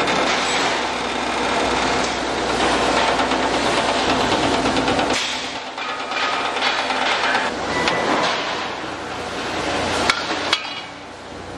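Hydraulic press and workshop machinery running with a dense metal clatter, with two sharp metal clinks near the end.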